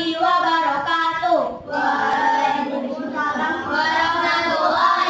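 Children singing, with long held notes that glide up and down in pitch.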